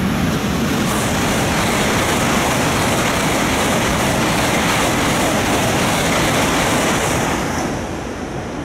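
Shinkansen bullet train passing through the station at high speed without stopping: a loud, steady rush of wheel and air noise that eases off near the end as the train clears.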